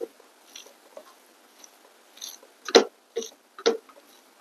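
Mouth sounds of eating: scattered short chewing clicks and lip smacks, the loudest a little past halfway.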